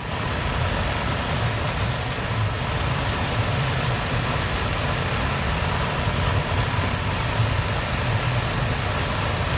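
Mitsubishi Fuso Fighter A/C blower motor running out of its housing, its squirrel-cage fan spinning with a steady whir and a heavy low hum of vibration. It switches on suddenly at the start. The shaking comes from the fan wheel being packed with dust; the motor itself is fine.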